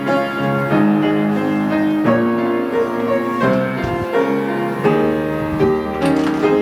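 Piano playing a slow, steady run of held chords as a church service postlude.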